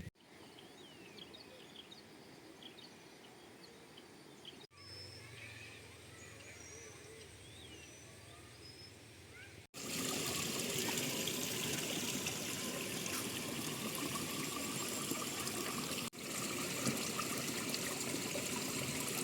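Quiet outdoor air with small birds chirping, then, after a cut about halfway through, the steady, louder rush of flowing water.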